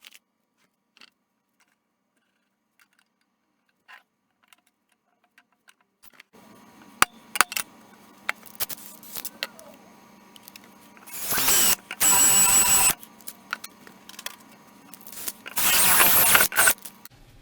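Power drill run in two short bursts, each about a second and a half, with a high whine that climbs as the motor spins up. A steady low hum and scattered small clicks of tool handling come before and between them.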